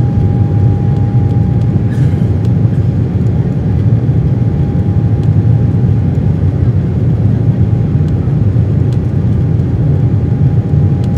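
Inside the cabin of an Embraer E190 climbing out after takeoff: its General Electric CF34 turbofan engines running, a loud, steady low rush with a thin steady whine above it.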